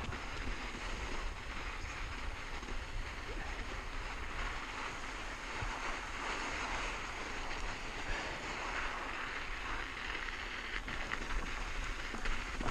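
Wind rushing over a chin-mounted action camera's microphone, mixed with mountain bike tyres rolling over sand and loose rock on a downhill run. A few sharp clicks and rattles come near the end.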